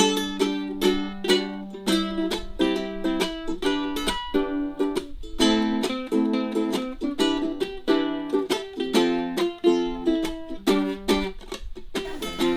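Ukulele music: chords strummed in a steady rhythm.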